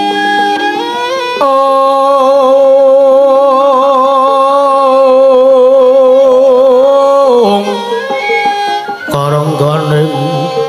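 Javanese gamelan music with singing: a voice holds one long note with vibrato for about six seconds, then the ensemble's stepped melody returns, with a lower voice coming in near the end.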